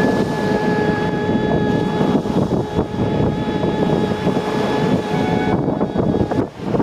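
Strong wind on the microphone and surf, with a woman's a cappella voice holding one long steady sung note that breaks off about five and a half seconds in, then a short higher note.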